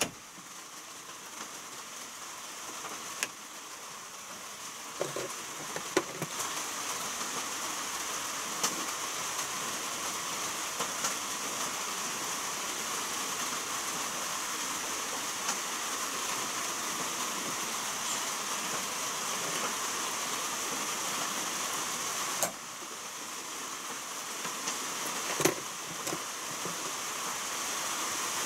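Occasional sharp plastic clicks as a car's roof grab handle and its trim covers are pressed back into place, over a steady hiss. The hiss dips about three-quarters of the way through, then builds again.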